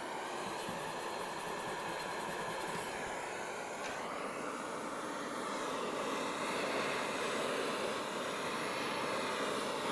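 Hand-held MAP gas torch burning with a steady hiss as its flame is played over an aluminum wheel rim, preheating the metal and burning out contaminants ahead of TIG welding.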